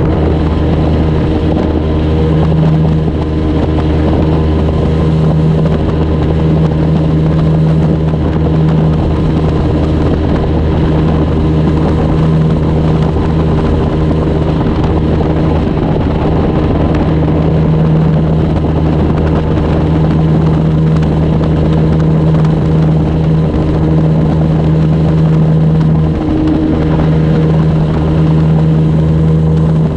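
Outboard motor of a flats skiff running at a steady cruise, its pitch holding even, with a rush of wind and water under it.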